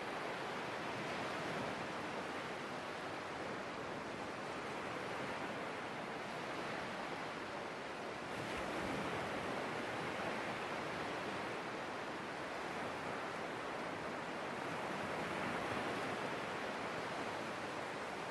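Sea surf washing onto the shore as a steady rush, swelling gently a few times.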